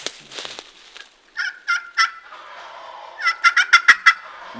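Wild turkeys gobbling loudly, two rattling gobbles about two seconds apart, the second one longer. These are young toms (jakes) that came in to the call.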